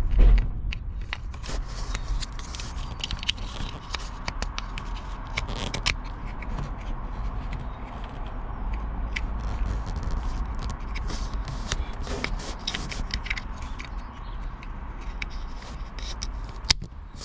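Hands refitting a part in a car's engine bay: scattered clicks, scrapes and light knocks of plastic and metal, with a thump at the start and a sharp click near the end.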